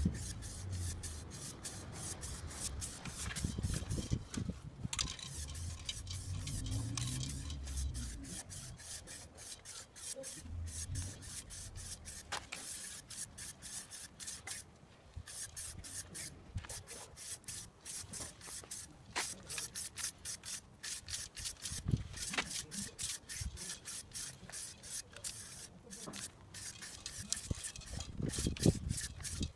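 Aerosol spray-paint can hissing in many short bursts, one after another, as dark grey paint is sprayed onto a model boat hull.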